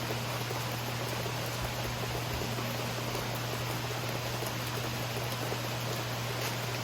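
Steady rain falling, an even hiss with faint scattered drop ticks and a constant low hum underneath. No thunder is heard.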